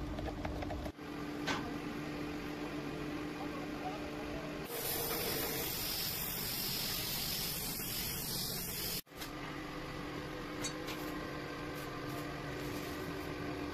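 Paint spray gun hissing steadily for about four seconds, from about a third of the way in, as it sprays paint onto a steel part. It stops abruptly.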